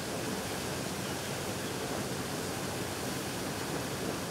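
Water gushing from a fire hydrant broken off by a car, a steady rushing noise that does not change.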